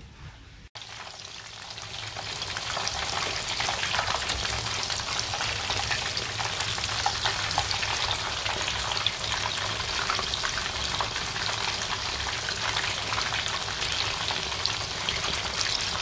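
Spanish mackerel (ikan tenggiri) slices deep-frying in hot oil in a wok, a dense, steady crackle and sizzle. It starts about a second in and builds over the next two seconds.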